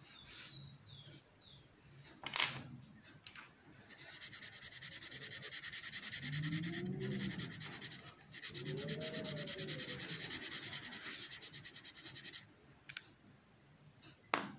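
Coloured pencil scratching quickly back and forth on paper in fast shading strokes, from about four seconds in until near the end, with a brief break in the middle. A sharp click about two seconds in.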